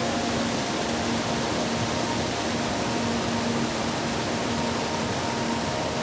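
Waterfall pouring into a creek's plunge pool: a steady rushing of churning whitewater.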